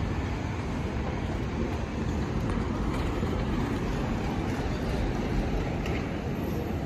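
Steady low rumble of city street noise from electric trams and traffic, without any single distinct event.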